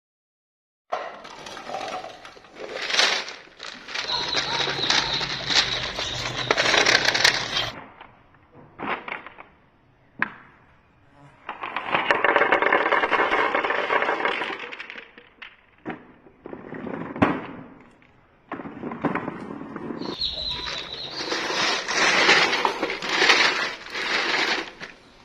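Marbles rolling and clattering along a plastic marble run track, with rumbling runs broken by sharp clicks as they drop and knock against the pieces.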